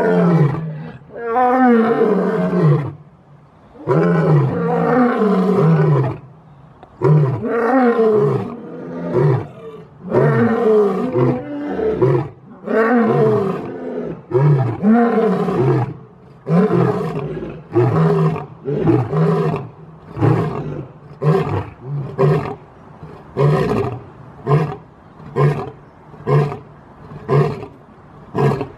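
Lion roaring: a few long roars that fall in pitch, then a run of short grunting roars that get shorter and come closer together toward the end.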